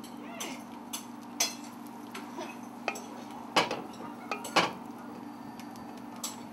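A slotted spatula scraping and tapping against a stainless steel pan as sautéed vegetables are pushed out onto an omelet, in short scattered scrapes and clicks with two louder knocks past the middle.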